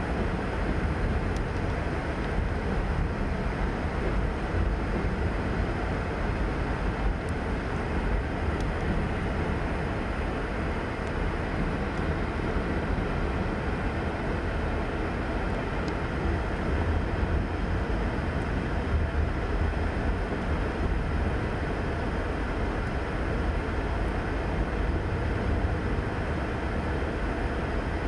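Freight train of covered hopper cars rolling past, a steady low rumble of steel wheels on rail with a few faint clicks, heard from inside a car.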